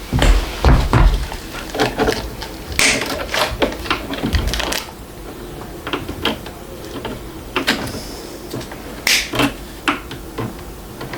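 Packaging and parts of a 3D printer being handled during unboxing: irregular knocks, clicks and rustles, some sharp and loud, a couple of seconds apart or in quick clusters.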